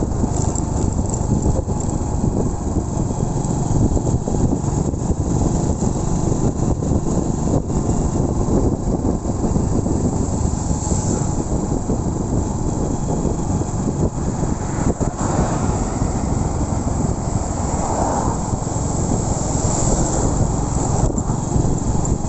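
Honda Win 100's small single-cylinder engine running steadily as the motorcycle is ridden along, under a constant rush of road and wind noise.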